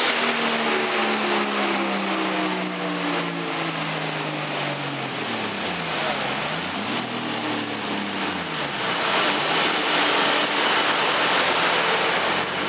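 Nissan RB25DET Neo turbocharged straight-six and the chassis dyno rollers winding down after a full-power run: the engine note falls steadily in pitch, dips and rises again twice around the middle, then settles. A steady rushing noise runs underneath.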